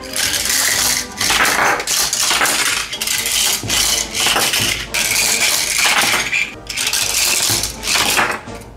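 Die-cast toy cars and plastic playset parts clattering, with many quick clinks and knocks as the cars run down and drop off plastic ramps.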